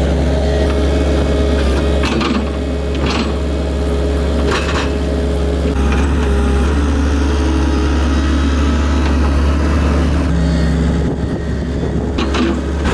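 An engine running steadily with a low hum, with a few short knocks and clatters over it.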